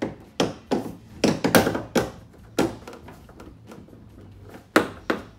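A run of about eight sharp, irregular knocks and thuds from hands working at the Dodge Challenger's rear spoiler as its double-sided tape is freed from the trunk lid. The hardest knocks come about a second and a half in and near the end.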